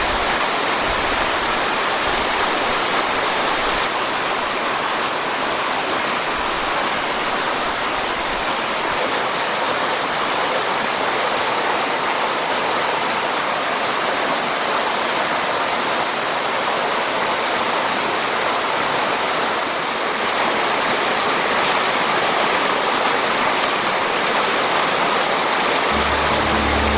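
Waterfall on a mountain stream pouring, a loud steady rush of water with no let-up.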